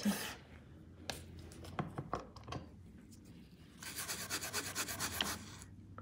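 Quiet handling of nail-stamping plates and tools. A few light clicks come first, then, about four seconds in, a rapid run of scratchy rubbing strokes lasting about a second and a half.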